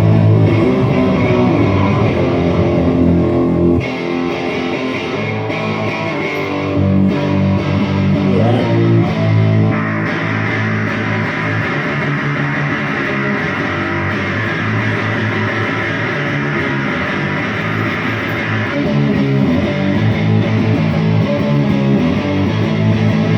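Amplified guitar played solo through the PA for a sound check, chords ringing out continuously. The tone turns brighter about ten seconds in and settles back near the end.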